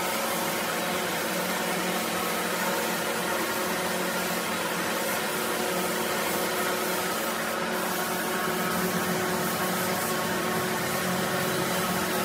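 Gravity-cup spray gun driven by compressed air, hissing steadily as it sprays finish onto wood, with a steady machine hum underneath.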